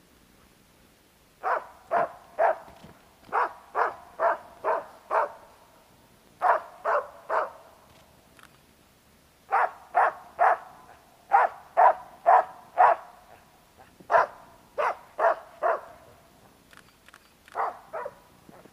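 Hunting dog barking up a tree at a treed squirrel: loud, evenly spaced barks about two a second, in runs of two to five with short pauses between. This is the dog's treeing bark, marking the tree where the squirrel is hiding.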